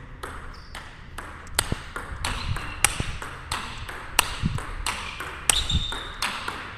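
A table tennis rally: the celluloid-type plastic ball clicking sharply off the rackets and the table, about two to three hits a second, each click ringing briefly in the hall.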